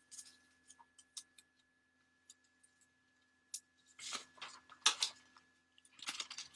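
Paper pattern pieces being handled and mended: scattered light clicks and taps, then three short rustling, scraping bursts about four, five and six seconds in. A faint steady buzz from a quail-egg incubator runs underneath.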